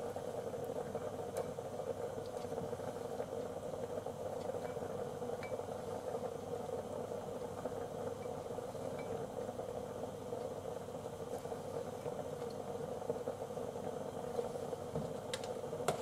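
Steady hum and rumble of a lidded pot of nameko miso soup boiling on an induction cooktop. Over it come faint scrapes of a silicone spatula stirring miso in a ceramic bowl, and a couple of light knocks near the end.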